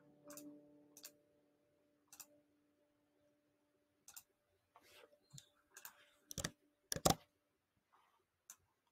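About a dozen scattered clicks of a computer mouse and keyboard, coming faster and louder a few seconds in. The last held note of the background piano music fades out over the first few seconds.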